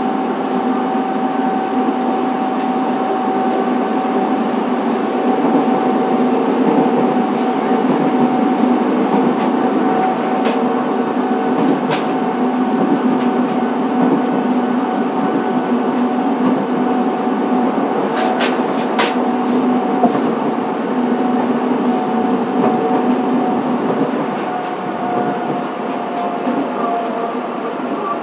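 Running sound heard inside a Fukuoka City Subway 2000 series train car: a steady rumble of wheels on rail under a steady motor whine, with a few sharp clicks in the middle. Near the end the whine dips slightly in pitch and the noise eases.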